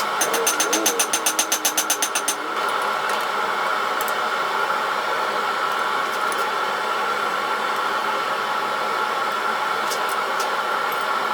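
A steady mechanical running sound in a blacksmith's workshop, with a fast run of sharp metallic strikes, about eight a second, that stops about two and a half seconds in.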